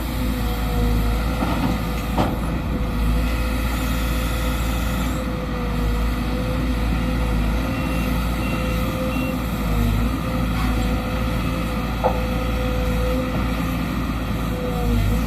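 Sumitomo SH210 hydraulic excavator working, its diesel engine running steadily under a high whine that wavers slightly, with a few sharp knocks, one about two seconds in and one near twelve seconds.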